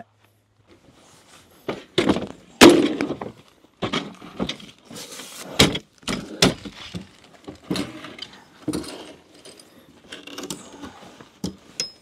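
Camping gear being unloaded and set up: a string of irregular knocks, thuds and clatters with some metallic rattling, starting about a second and a half in and loudest about a second later.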